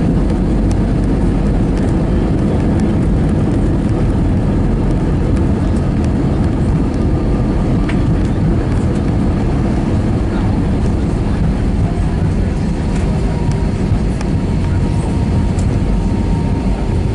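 Airbus A320 cabin noise during the landing rollout: a loud, steady rumble of the engines and the wheels on the runway, heard from inside the cabin. A faint steady whine comes in about twelve seconds in.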